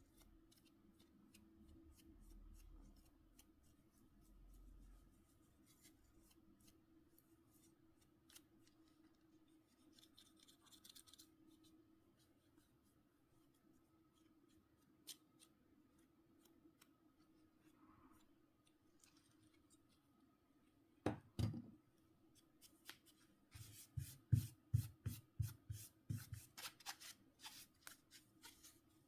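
Hands and small tools working on a mobile phone's parts: scattered faint clicks, a sharp double knock about two-thirds of the way through, then a quick run of scraping strokes, about four a second, near the end.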